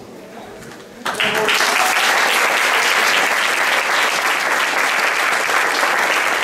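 Audience applauding, breaking out about a second in and carrying on steadily.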